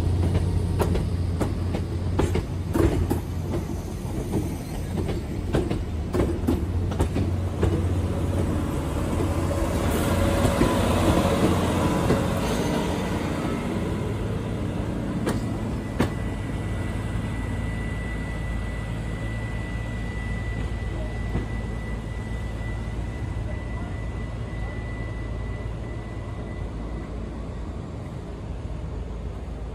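A train running on the rails, with a strong low hum and a run of sharp wheel clicks over the rail joints in the first several seconds. The sound then eases gradually, and a thin steady high tone holds for about ten seconds in the second half.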